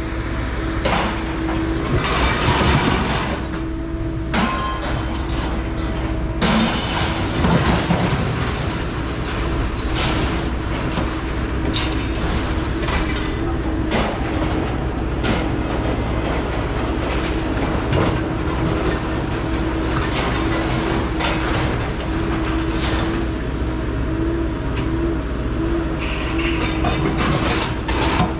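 A vehicle running in motion: a steady rumble and hum with repeated rattling and clattering knocks.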